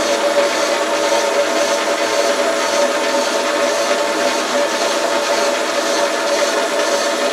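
Boxford AUD metal lathe running steadily with the chuck spinning and the leadscrew engaged for screw-cutting an imperial thread, a loud constant machine hum with a steady tone through it.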